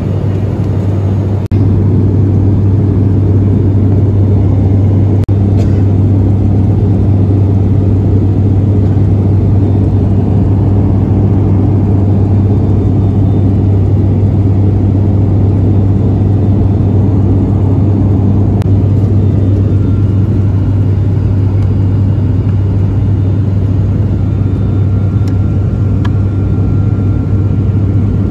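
Cabin noise of an ATR 72-500 turboprop in cruise: a loud, steady drone led by the low hum of its six-bladed propellers, with engine and airflow noise beneath.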